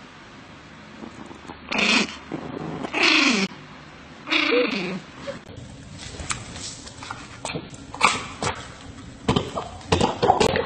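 A small dog makes three whiny, drawn-out vocal sounds whose pitch falls at the end. They are followed by a run of short sharp clicks and smacks, a dog chewing food.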